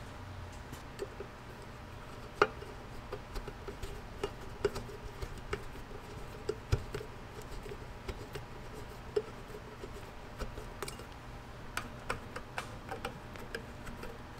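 Scattered small metallic clicks and taps of a screwdriver working small screws into the metal cover and base of an antique fire bell, with a sharper click about two and a half seconds in.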